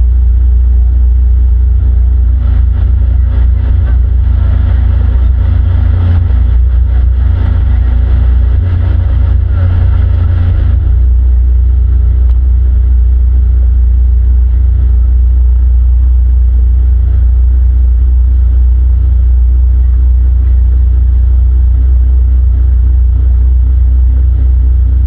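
Motorboat under way: its engine runs steadily beneath a heavy, loud low rumble. A rushing hiss joins in from about two seconds to about eleven seconds in.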